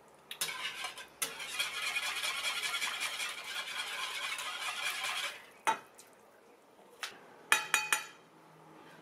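Wire whisk beating mole sauce in a skillet: a rapid, steady scraping swish of the wires against the pan for about five seconds, which then stops. A few sharp metal clinks against the pan follow near the end.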